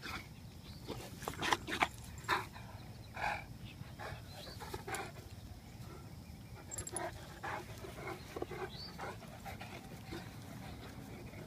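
Saint Bernard breathing and snuffling in short, irregular bursts as it rolls on the grass and noses the ground, the bursts coming thicker in the first half.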